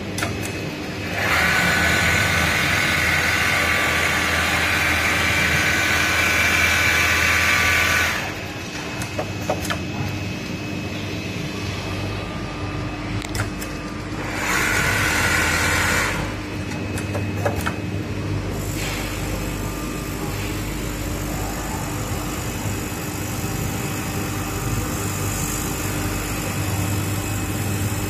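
Richpeace automatic single-head sewing machine at work: a loud, steady whir that starts about a second in and lasts roughly seven seconds, and again for a couple of seconds about halfway. In between it runs with a lower hum and a few sharp clicks.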